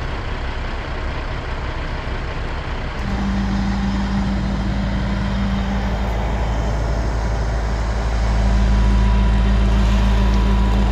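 Crane truck's diesel engine running, revving up about three seconds in and climbing higher again around eight seconds as it takes the load of a lifted tree section.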